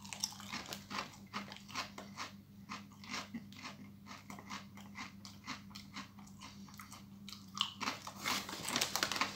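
Walkers Max ridged potato crisps crunching as they are bitten and chewed, in a quick, irregular run of crisp cracks.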